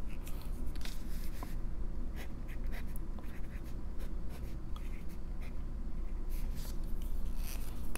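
Steel nib of a Lamy Safari fountain pen with a medium nib scratching across notebook paper in a run of short strokes as a word is written, over a low steady background hum.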